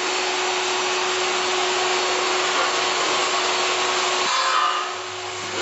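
Automatic screw-fitting assembly machine running with a steady whirring hiss and a single steady tone, which cut off about four seconds in. A softer low hum follows.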